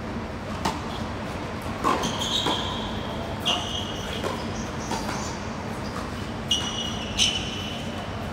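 Tennis ball struck by rackets in a quick doubles rally: a serve, then a fast exchange of volleys, heard as about eight sharp pops a second or less apart. Shoes squeak high on the hard court between shots.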